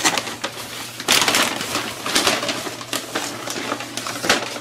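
Brown kraft paper wrapping being torn and crumpled by hand, a run of crackling rips and rustles.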